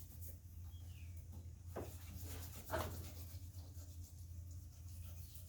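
Faint scraping handling noises, two short strokes about a second apart, over a steady low hum.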